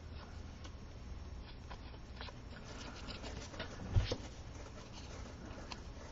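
Faint rustling and small ticks of paper pieces being handled on a desk, with one short dull thump about four seconds in.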